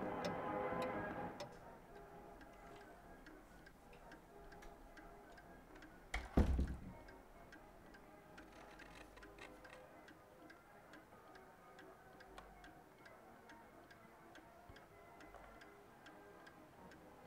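Clock ticking steadily and evenly, with a single dull thump about six seconds in.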